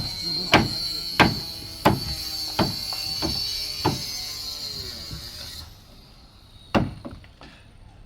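Sharp, regular knocks of a tool striking, about three every two seconds, then a pause and one more strike near the end. A steady high-pitched whine runs alongside and stops a little over halfway through.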